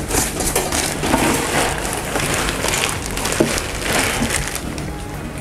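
Plastic bag and paper wrapping crinkling and rustling in irregular handfuls, with cardboard box flaps scraping, as a packaged wok is lifted out of its box.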